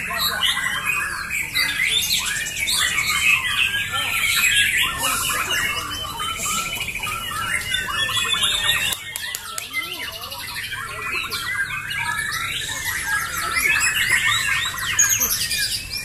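Several caged white-rumped shamas (murai batu) singing against each other at once: loud, overlapping whistles, gliding notes and rapid trilled volleys.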